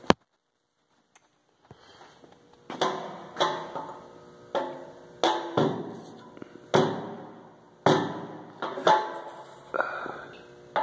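A sharp click, a second and a half of silence, then about a dozen hollow metallic knocks, under a second apart, each ringing briefly: a wooden broom handle knocking against the inside of an antique tractor's steel fuel tank as it is dipped to gauge the fuel level.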